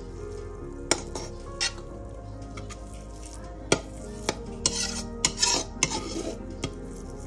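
A spoon scraping cooked rice out of a bowl into a steel pan: a few sharp clinks of metal on metal and the soft rustle of rice sliding down.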